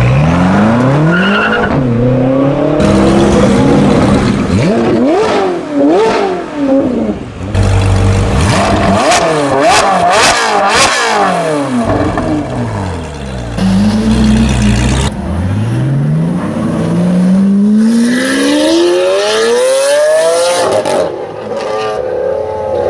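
A run of supercar engines revving and accelerating: a BMW M6 convertible's twin-turbo V8 pulling away, the revs climbing at the start. A Ferrari 458 Speciale's V8 is blipped several times in quick succession in the middle, and near the end another car accelerates hard, its revs climbing for several seconds.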